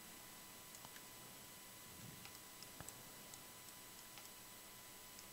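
Near silence: faint hiss and a thin steady tone, with a scattered handful of soft, short clicks from a computer mouse and keyboard being worked.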